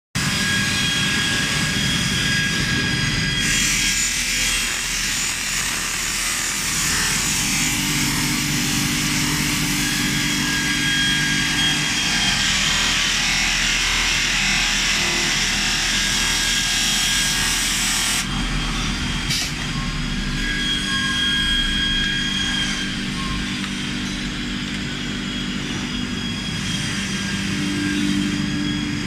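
CNC polishing machine running: a steady motor hum with its wheel hissing against metal dome caps as it mirror-polishes them. The loud hiss stops about two thirds of the way through, leaving the hum.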